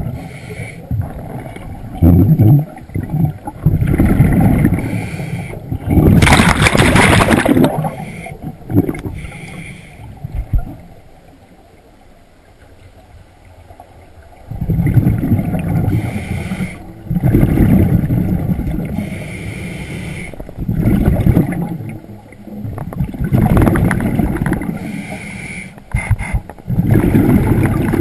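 Scuba breathing underwater: exhaled bubbles from a regulator in rumbling bursts, with a sharper hiss of the regulator a few seconds in. The breaths come unevenly, with a pause of about four seconds near the middle.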